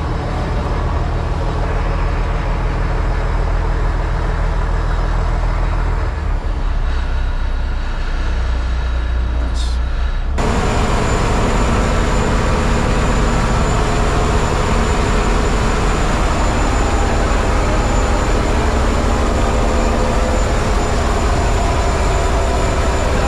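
Boat engine running steadily with a loud, constant drone. About ten seconds in it changes abruptly to a louder, fuller engine noise that carries on steadily.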